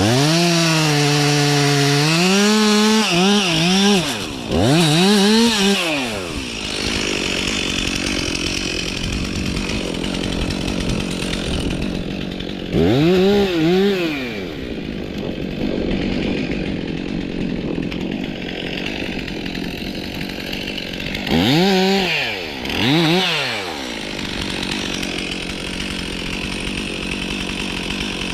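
Stihl MS 362 C two-stroke chainsaw running at idle, its engine revved up in short surges that rise and fall: a longer run at the start, one in the middle, and two in quick succession near the end.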